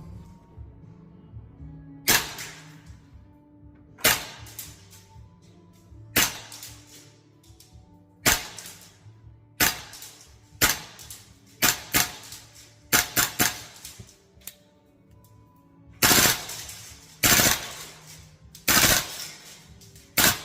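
VFC AR15 gas-blowback airsoft rifle firing single shots, each a sharp crack of the gas-driven bolt cycling. About fourteen shots come irregularly, a second or two apart, with a few in quicker succession.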